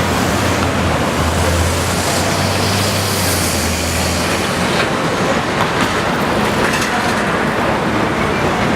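City street traffic: a steady noise of passing vehicles, with a low engine hum that stops about four seconds in.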